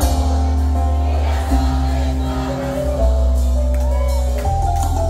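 Live salsa band playing, with saxophone, percussion and a deep bass line that changes note about every one and a half seconds, heard from among the audience.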